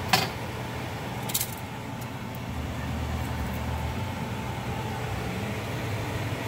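A steady low hum with a sharp click just after the start, the loudest sound, and a smaller click about a second later.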